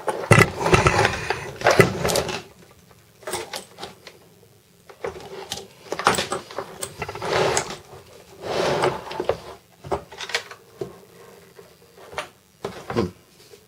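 A car battery being turned and shifted on a wooden workbench while cables with metal ring terminals are handled: a series of knocks, scrapes and rattles with quiet gaps between them.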